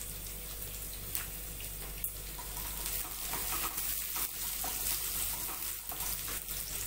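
Chopped garlic sizzling in hot sesame oil in a nonstick kadai, stirred with a wooden spatula that scrapes and knocks against the pan a few times.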